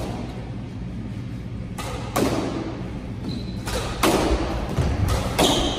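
Squash ball struck by rackets and hitting the court walls during a doubles rally: about five sharp knocks with a short echo off the court.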